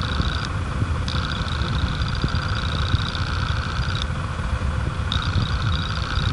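Akai AP-1000 belt-free turntable running with the record spinning but no music coming through, since the amplifier is still off: a steady low rumble with a faint high whine that cuts out twice for about a second.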